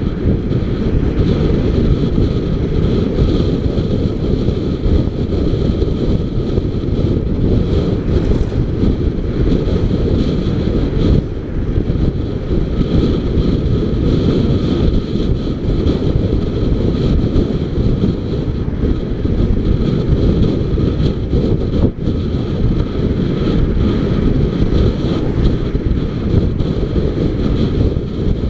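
Steady wind rushing over the microphone of a camera mounted on a moving motorcycle, with the motorcycle's engine and road noise underneath.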